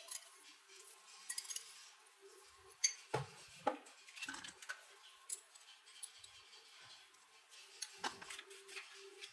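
Small hard objects being handled on a work surface: a scatter of light clicks, taps and clinks, the sharpest about three to four seconds in and again near the end, over a faint steady hum.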